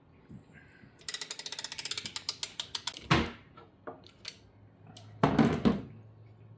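Ratchet wrench clicking rapidly for about two seconds, the clicks speeding up, followed by a clunk about three seconds in and another heavier clatter of tools or parts about five seconds in.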